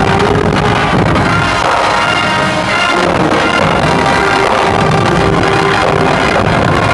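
High school marching band music playing loudly, held horn notes over drums.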